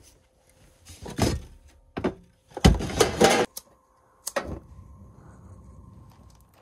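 Knocks and clatter of gear being moved, loudest about halfway through. Then a click as a burner on a Suburban two-burner gas stove is lit with a lighter, followed by the faint steady hiss of the gas flame.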